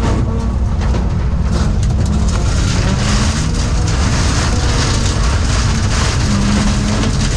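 Stock car engine running hard during a rallycross heat, with a constant hiss and crackling spatter over it.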